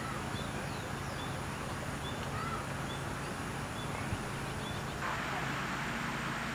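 Small birds chirping in short calls, over a steady background hiss and low hum, with a light click about four seconds in. About five seconds in, the hiss turns suddenly louder and brighter.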